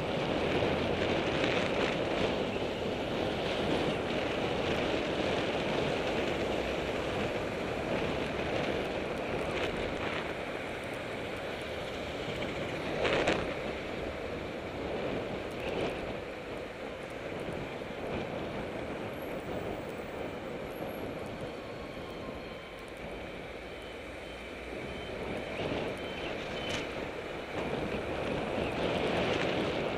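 Steady rushing wind noise on a bicycle-mounted action camera's microphone while riding, mixed with the noise of passing city traffic. A single sharp knock comes about halfway through.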